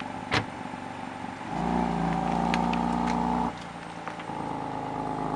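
BMW M3 F80's twin-turbo 3.0-litre S55 straight-six running at idle through its quad exhaust. It is raised and held at higher revs for about two seconds, then drops back to idle. A single sharp click comes just before.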